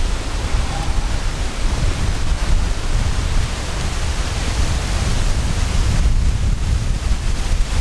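Strong wind buffeting the microphone: a loud, steady rushing hiss over a fluttering low rumble.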